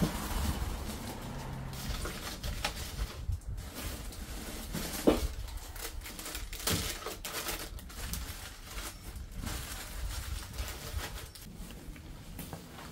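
Household handling noises: a plastic bag rustling and small items clattering into a wooden cabinet drawer, with one sharp knock about five seconds in.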